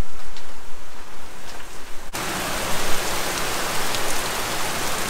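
A low rumble for the first two seconds, then, after an abrupt cut, heavy rain pouring down steadily.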